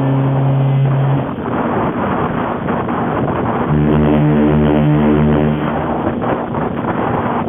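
Cunard ocean liner's horn sounding two blasts over steady rushing noise: a blast that stops about a second in, then a deeper, fuller blast of about two seconds near the middle.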